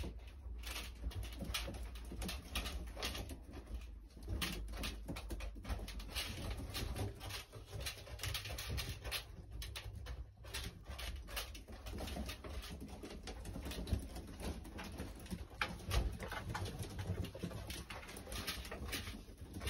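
Domestic pigeons cooing in a loft, with frequent short clicks and rustles.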